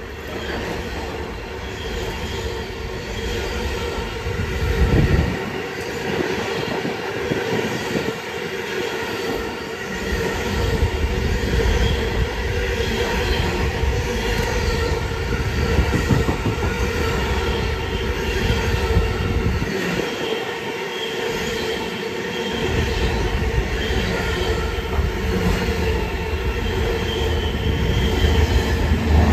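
Stainless-steel passenger carriages of the Great Southern train running past close by, wheels rumbling and clattering over the rail joints with a steady wheel squeal over the top.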